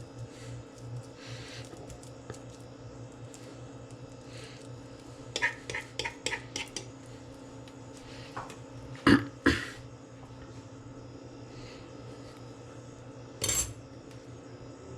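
Kitchen utensils clinking and knocking against bowls and dishes: a quick run of about six taps, then two loud knocks close together and one more near the end, over a faint steady hum.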